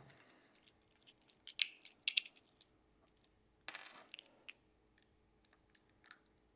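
Small metal parts and a hex driver being handled on a table: a few sharp clicks and clinks about one and a half to two seconds in, and a short scraping rattle near the middle, followed by faint ticks.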